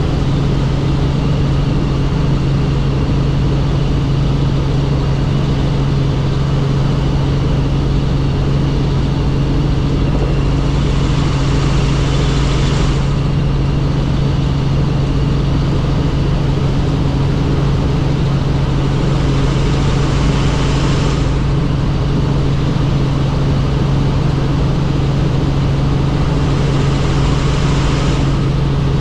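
Helicopter in flight: a loud, steady engine and rotor drone with a constant low hum. Three times a higher hiss swells up for two or three seconds and drops away.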